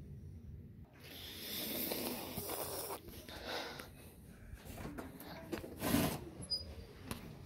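Handling noise from a phone being moved about: a rough rustling for about two seconds starting a second in, then scattered knocks with a louder thump about six seconds in.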